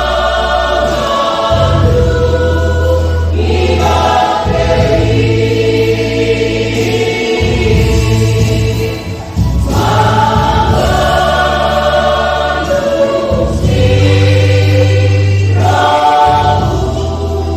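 Church choir singing a hymn in Batak Toba, with several voices in harmony over long, steady low bass notes that change every couple of seconds.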